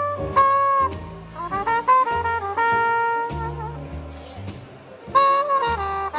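Trumpet with a Hawkins carbon-fibre cup mute playing a jazz line of short phrases and held notes, with bass notes underneath.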